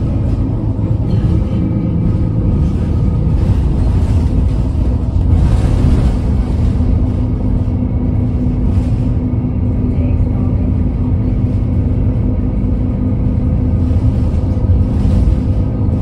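Interior noise of an Alexander Dennis Enviro300 single-deck bus under way: steady engine and road rumble with several steady tones over it, and a brief hiss about five seconds in.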